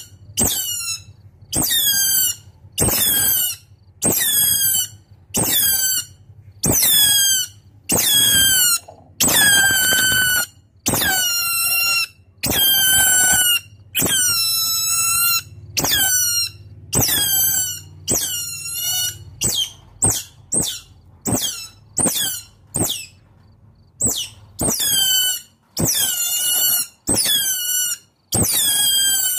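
Otter calling: a long series of high-pitched squealing calls, about one a second, each sliding down in pitch, with a run of shorter, quicker calls a little past the middle. The calls are an otter calling to its companions.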